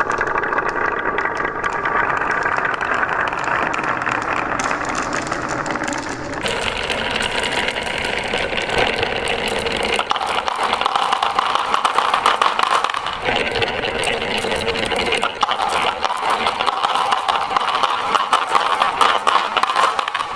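Marbles rolling and clattering continuously down a wooden marble run, a dense rattle of many small knocks. The sound changes abruptly about six seconds in, to a brighter, busier clatter.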